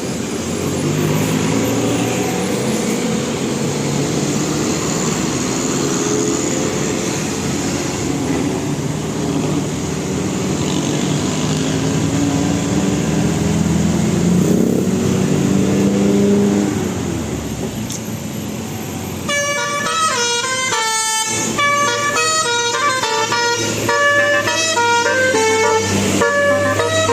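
Indonesian bus telolet musical horn sounding a tune amid street noise, its notes shifting and gliding. About two-thirds through, a cut brings a cleaner, quick run of bright high horn notes.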